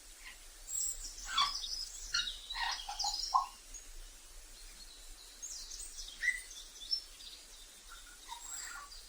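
Grey parrot giving a series of short whistles, chirps and squawks, busiest in the first three and a half seconds, with another round of calls about six seconds in.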